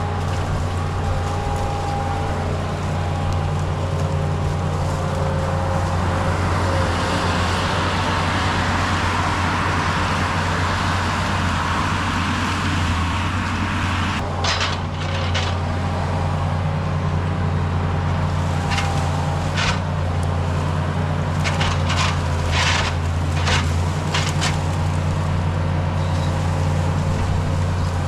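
Skid steer engine running steadily, with a rush of noise in the middle and a series of sharp metal clanks in the second half.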